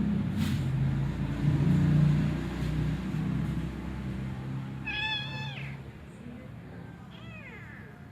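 Domestic cat meowing twice: a clear meow about five seconds in that drops in pitch at its end, then a fainter, falling meow about two seconds later. A low rumble fades out over the first few seconds.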